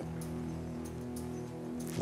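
Soft background music: a low sustained chord held steady.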